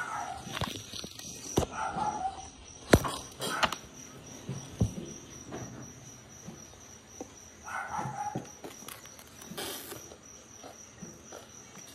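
Scattered sharp crunches and clicks close to the microphone, over a cricket chirping steadily in the background at about four pulses a second.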